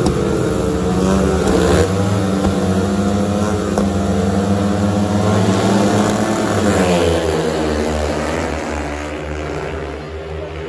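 Several speedway bikes' single-cylinder engines revving hard together at the starting gate, then launching about seven seconds in, their sound fading as the pack pulls away.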